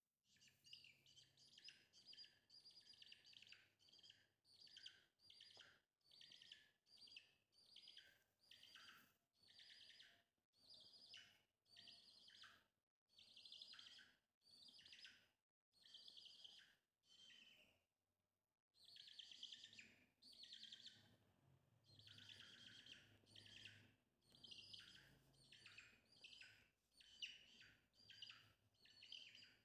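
Baby chick peeping: faint clusters of quick, high, falling peeps, about one cluster a second, with a short break about two-thirds of the way through.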